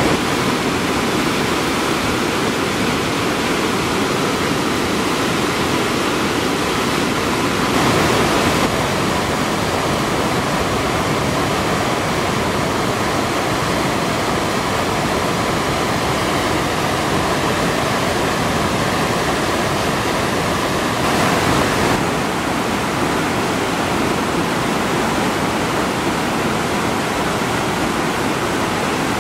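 Waterfall swollen with spring snowmelt, heavy white water pouring over rock ledges in a steady, loud rush. The sound shifts briefly about eight seconds in and again about twenty-one seconds in.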